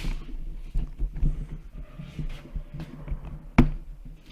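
Handling and rummaging through a box of suspension lowering-kit parts: scattered light knocks and clicks, with one sharp knock about three and a half seconds in, over a steady low hum.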